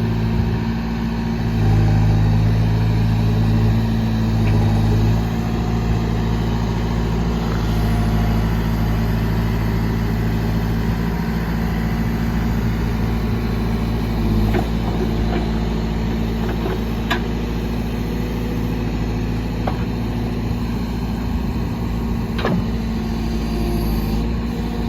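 2010 Case 580 Super M backhoe's turbo diesel engine running steadily while the backhoe is being worked, its note louder for a few seconds about two seconds in. A few faint knocks are heard later on.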